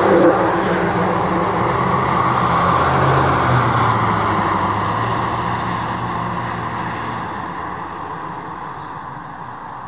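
Fire engine passing close by and driving away, its diesel engine and tyres loud at first and fading steadily as it recedes down the road.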